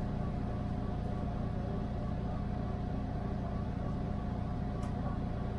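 TTC subway train running along the track, heard from inside the front car: a steady low rumble with a steady high tone over it, and a couple of faint clicks near the end.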